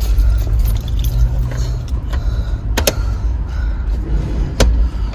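Door being worked open, with two sharp clicks of its latch or hardware a couple of seconds apart, over a steady low rumble.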